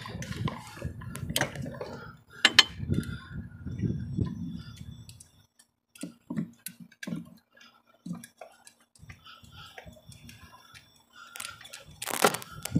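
Hands working among the parts of a truck's engine bay: rustling, with scattered clinks and knocks of metal fittings, clamps and hoses being handled. There is a sharp click about two and a half seconds in and a louder knock near the end.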